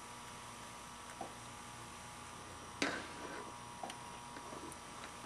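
Homemade static grass applicator held and shaken over wet glue: a faint steady electrical hum with scattered light clicks and taps, one louder tap about three seconds in.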